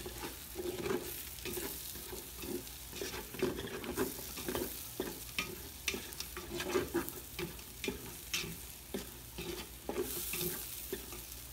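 Wooden spatula stirring and scraping sliced potatoes and onions around an aluminium pot, with irregular knocks and scrapes against the metal over a steady sizzle of frying.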